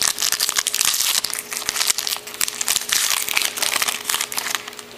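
Foil wrapper of a 2007 Spectrum baseball card pack crinkling and crackling as it is opened by hand, a dense run of sharp crackles that eases off near the end as the cards come out.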